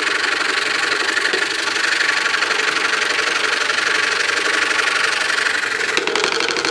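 DeWalt scroll saw running and cutting through a stack of wood, the blade's rapid up-and-down strokes giving a steady buzz.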